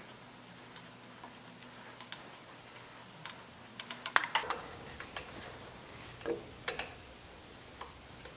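Light metallic clicks and clinks from a 1919 Harley-Davidson engine's intake push rod cover and spring being worked loose by hand to pull the push rod. A quick cluster of ticks comes about four seconds in, with a few single clicks before and after.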